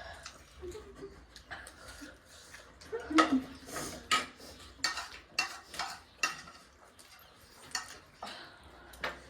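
Cutlery clinking and scraping against plates while eating, an irregular series of short, sharp clicks, the loudest a few seconds in.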